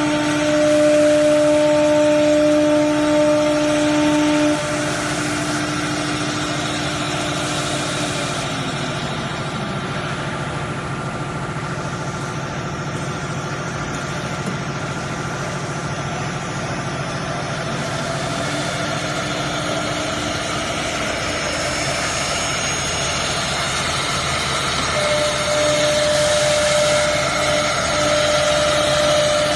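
Three-spindle CNC router running, its spindles whining steadily as a bit routes into a wooden board, over the noise of the cut. The whine drops in level about four and a half seconds in, slides down in pitch around nine seconds in, comes back near twenty seconds in, and gets louder again near the end.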